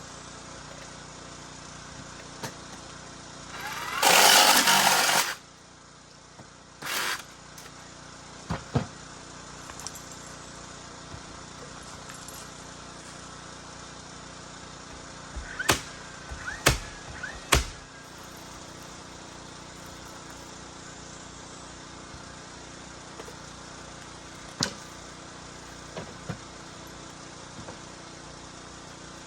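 Carpentry work over a steady low hum: a loud burst of noise lasting just over a second about four seconds in, a shorter one soon after, then three sharp knocks in quick succession around the middle, and a few lighter clicks.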